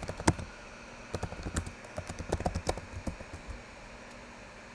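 Typing on a computer keyboard: an irregular run of key clicks that stops about three and a half seconds in.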